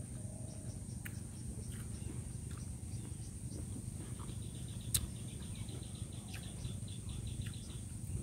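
Outdoor insect chorus: a steady high buzz, joined about four seconds in by a fast pulsing trill. There is one sharp click about five seconds in, over a low rumble.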